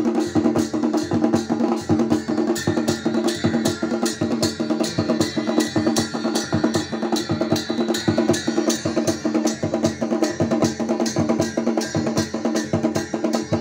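Chhaliya baja folk band playing. Drums and brass cymbals strike a fast, even beat of about three to four strokes a second over a steady held tone.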